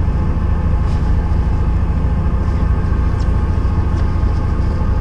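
Fishing boat's engine running steadily, a continuous low drone with even engine tones and no change in pitch.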